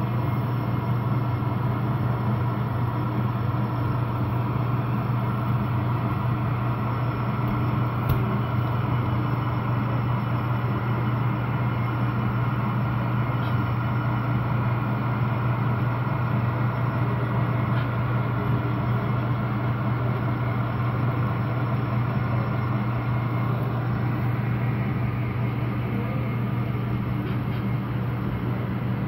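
Model diesel locomotive consist (ES44AC leading an SD60 and two SD70ACe units) pulling slowly out of a yard, with a steady low engine drone. A single faint click comes about eight seconds in.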